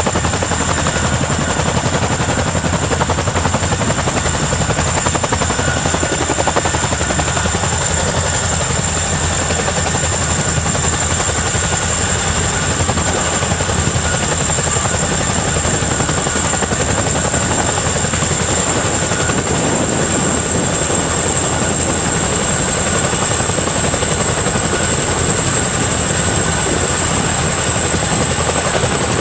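CH-47 Chinook tandem-rotor helicopters hovering low for a sling-load lift: steady, loud rotor noise with thudding blades and a steady high turbine whine.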